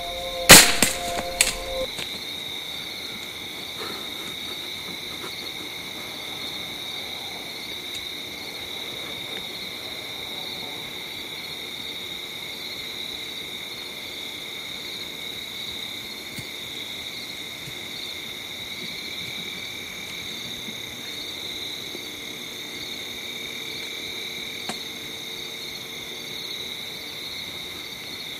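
Evening insect chorus of crickets, a steady high chirring at two pitches. A few sharp clicks come in the first couple of seconds, as a music track ends.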